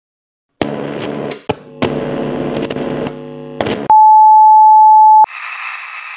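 Old-television sound effects: bursts of static and garbled channel sound with sharp clicks, then a loud, steady, high test-card beep for about a second and a half that cuts off sharply into static hiss.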